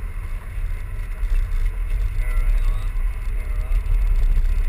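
Low, fluctuating rumble of a 4x4 climbing a steep rutted dirt track, heard from inside the cabin; it grows louder about a second in and again near the end.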